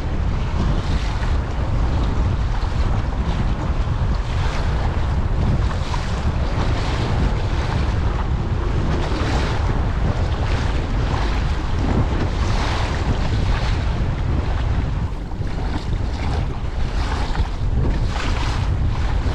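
Strong wind buffeting the microphone in a loud, steady rumble, with choppy, whitecapping lake water splashing irregularly around a kayak.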